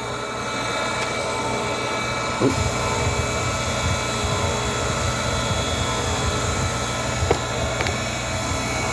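Electric chainsaw-chain grinder motor running steadily with its grinding wheel spinning, a steady whine. There are light clicks about two and a half seconds in and again near the end.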